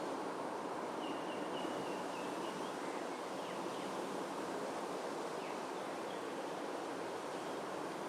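Steady outdoor background noise with faint bird chirps above it: a short run of chirps about a second in, then a few thin, scattered calls.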